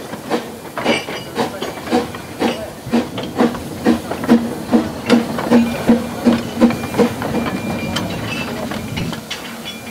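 Quarry Hunslet 0-4-0 tank steam locomotive working slowly past, its exhaust chuffing about twice a second, loudest in the middle as it passes close. Near the end the chuffs die away, leaving a steady hiss of steam.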